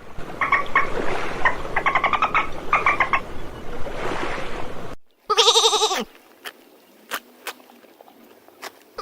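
Steady hiss for about five seconds, with several quick groups of short chirps. After a brief gap comes one loud, wavering bleat from a farm animal, lasting under a second.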